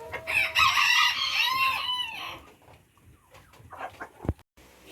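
A flock of chickens and roosters calling over each other, crows and clucks overlapping, loudest in the first two seconds, then thinning out to scattered sounds.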